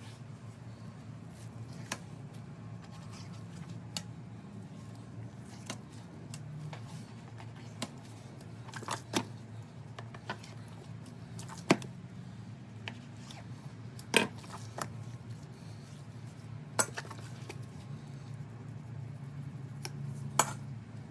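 A boning knife clicks and taps against a plastic cutting board while fat is trimmed from a raw brisket: about a dozen short, sharp clicks a second or more apart, over a low steady hum.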